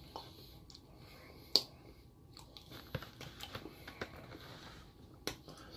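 A person eating soft iced sponge cake: quiet chewing and mouth sounds, with a few sharp clicks, the loudest about one and a half seconds in.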